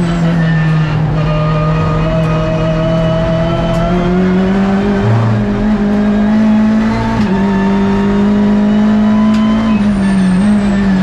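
Hyundai i30 N TCR race car's turbocharged 2.0-litre four-cylinder engine at racing speed, heard from inside the cockpit. Its note creeps up over the first few seconds, then steps up and down a few times.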